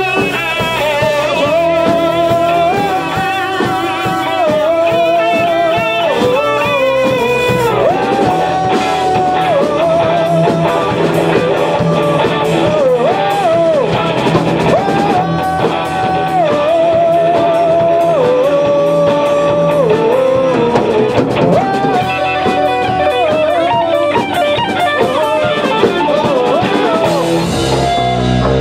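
Rock band playing live: electric guitar, bass guitar, drum kit and keyboard, with a lead melody of long held notes that waver in pitch over the band.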